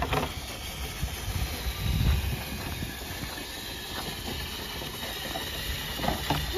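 Water pouring steadily out of a water container, a continuous hiss with a low rumble underneath.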